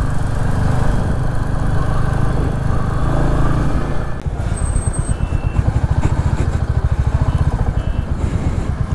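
Royal Enfield Hunter 350's single-cylinder engine running at road speed with wind noise. About halfway it drops to low revs, each firing pulse a distinct, even thump as the bike slows.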